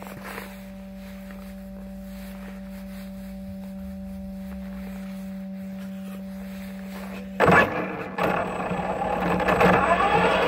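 Electric RC truck sitting still with a steady hum from its motor and speed controller, then about seven seconds in the motor suddenly spins up loudly and the truck drives off, motor and drivetrain whirring.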